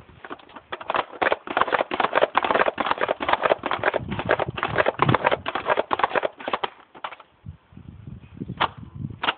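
Buzzbee Range Master air-powered toy dart blaster being pumped up to pressure: a quick run of plastic clattering strokes for about seven seconds, then two sharp clicks near the end.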